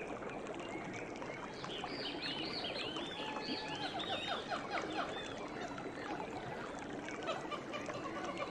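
Wild birds chirping and singing in a forest over a steady rush of running water. A quick run of high, arched chirps comes about two seconds in, and a repeated lower note takes over near the end.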